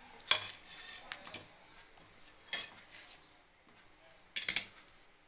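Wooden spatula stirring a thick batter in a metal pot, knocking and scraping against the pot's side: three sharp knocks, the loudest about a third of a second in, another about two and a half seconds in and one near the end, with a few light clicks between.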